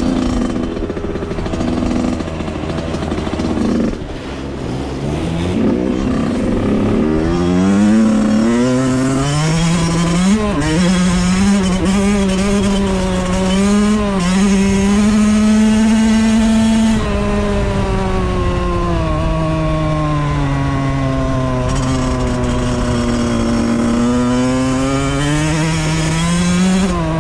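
Suzuki RM 85 two-stroke dirt bike engine under way, heard from the rider's helmet: the pitch climbs as it revs up a few seconds in, holds high and steady for about ten seconds, drops, then climbs again near the end, with steady wind and road noise underneath.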